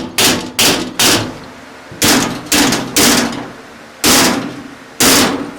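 Hammer striking a steel dowel driver (pin punch) to drive the dowel pin out of a Honda/Acura differential case. There are about eight sharp metal-on-metal blows in uneven groups of three, three, then two, each with a brief ring.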